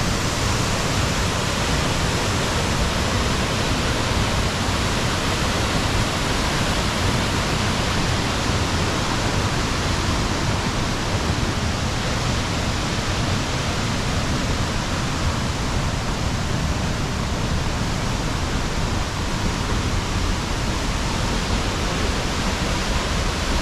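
Steady, even rush of a 25 m waterfall plunging into its pool.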